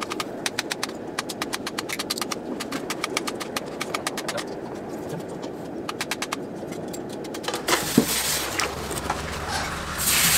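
Rapid, even clicking over a low rush at a charcoal forge, stopping about halfway and returning briefly. Near the end, a red-hot steel blade hisses loudly as it is plunged into water to quench it.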